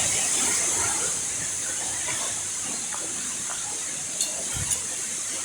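Steady rushing hiss of a waterfall, with two light clicks about four seconds in.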